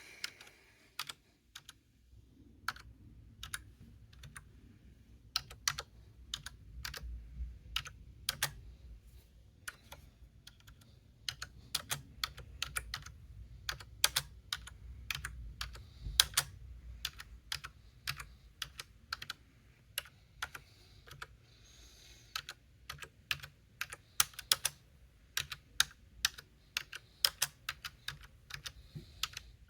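Typing on a Logitech K480 Bluetooth keyboard: irregular runs of sharp key clicks with short pauses between bursts.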